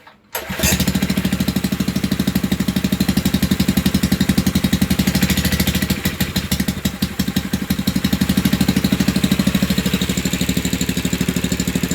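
Honda GX160 single-cylinder four-stroke engine on a wacker plate compactor, running on its newly fitted carburettor. It comes in suddenly about half a second in and then runs steadily, with a fast, even beat.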